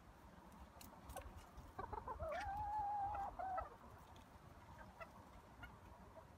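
A hen calling: a few short clucks, then a long drawn-out note held for about a second, then a couple more short clucks, about two seconds in. A few faint clicks come shortly before it.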